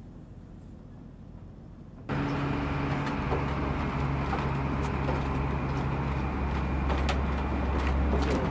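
A faint low rumble, then about two seconds in a steady engine hum starts abruptly and runs on, with a few sharp knocks from footsteps on wooden stairs.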